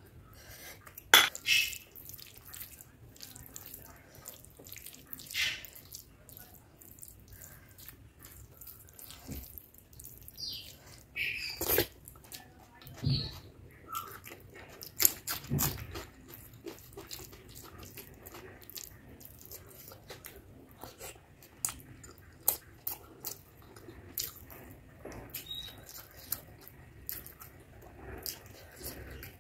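Close-up eating sounds: wet squelching and smacking as rice and curry gravy are mixed by hand, with chewing and lip smacks in between. The sounds come as irregular short wet clicks and smacks, busiest about a second in and again from about 11 to 16 seconds.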